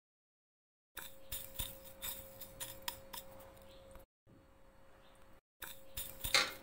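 A domestic duck's bill pecking at dry pet food in a bowl: quick sharp clicks and clinks of bill on kibble and bowl. After about a second of silence they run on irregularly, with the loudest burst of taps near the end as the bill strikes a metal bowl.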